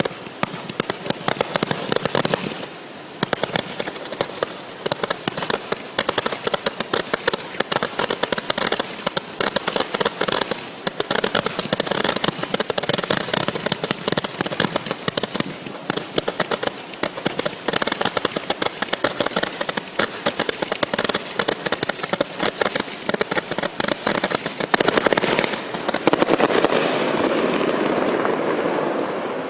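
Miracle 'Zip and Zap' 500 gram consumer firework cake firing its 432 shots as a rapid barrage of small pops, many to the second. It grows louder and fuller near the end.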